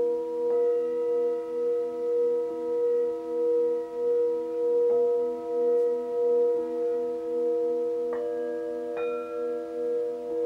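Several Tibetan singing bowls ringing together, struck with padded mallets. Four fresh strikes come one after another: about half a second in, at about five seconds, and twice near the end, the last two adding brighter, higher tones. The overlapping tones hold on with a slow pulsing waver.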